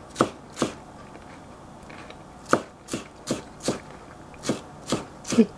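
Chef's knife chopping a vegetable on a plastic cutting board: two knocks, a pause of about two seconds, then a run of about eight chops at roughly three a second.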